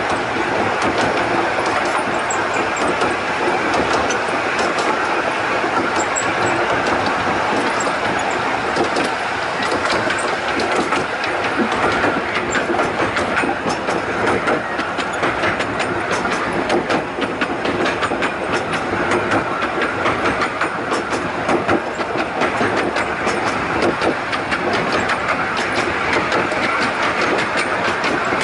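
Miniature steam railway train running steadily along the track, heard from on board: a continuous rumble of the carriages with frequent, irregular clicks of the wheels over the rail joints.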